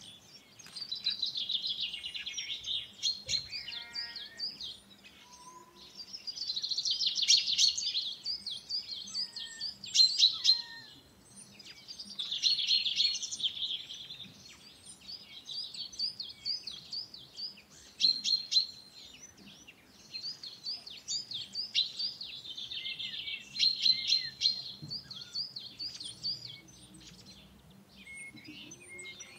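A flock of small birds chirping and twittering, with quick repeated chirps throughout and the chatter swelling into dense bursts every few seconds.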